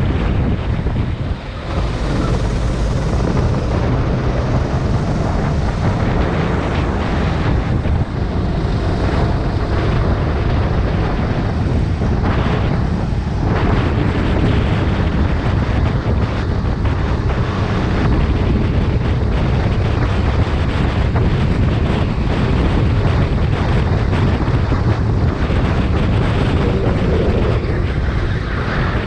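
Go-kart engine running flat out on track, heard onboard under heavy wind buffeting on the microphone, a dense, steady rumble with brief dips in level about a second and a half and eight seconds in.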